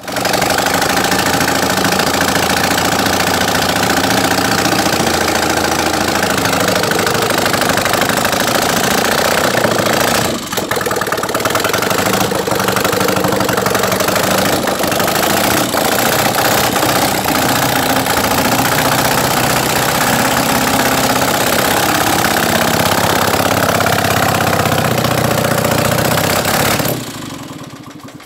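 Air-cooled motorcycle engine with exposed valve springs running loudly and steadily, with a brief dip about ten seconds in. It dies away about a second before the end.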